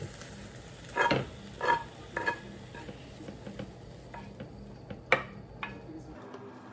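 Chicken-breast fried rice sizzling in a frying pan as it is stirred, with a spatula knocking and scraping on the pan a few times about a second in and a sharp clack around five seconds. A low steady hum cuts off near the end.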